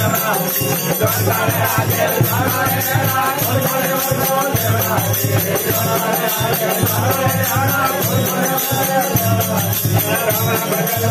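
Rajasthani fakiri bhajan performed live by a group of men: a man singing with harmonium, a long-necked drone lute, and small hand cymbals jingling in a steady rhythm.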